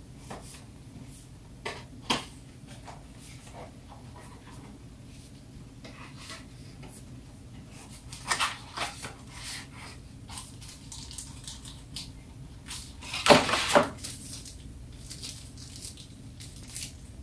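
Hands handling phone accessory packaging: scattered soft rustles and small clicks, with a louder burst of rustling about 13 seconds in, over a steady low hum.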